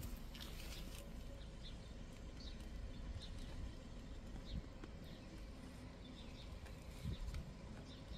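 Low wind rumble on the microphone, with faint, scattered bird chirps.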